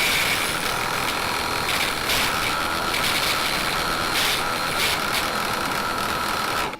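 Raitool 350 W mini wood lathe running with a chisel cutting into a spinning piece of softwood: a steady machine hum under loud scraping noise that swells now and then. It cuts off suddenly at the end.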